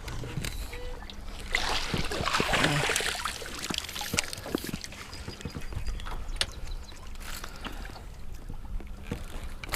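Scattered knocks and clatter in a fishing boat, with a stretch of splashing water about two seconds in and a faint steady hum underneath.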